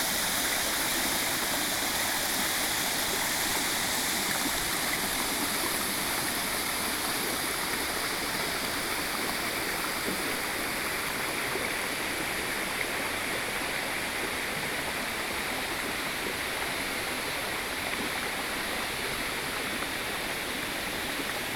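Waterfall crashing into its plunge pool, heard from close in front: a steady, even rush of falling water, easing very slightly toward the end.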